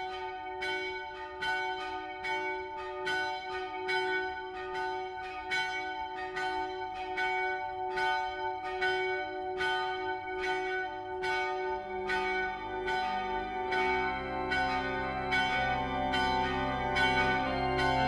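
Church bells ringing with steady, evenly repeated strokes, about two a second. About two-thirds of the way through, a low sustained chord of instrumental music comes in under them.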